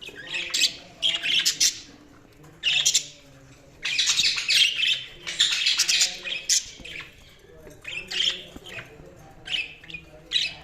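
Budgerigars chirping and squawking in quick bursts of short calls, busiest from about four to seven seconds in.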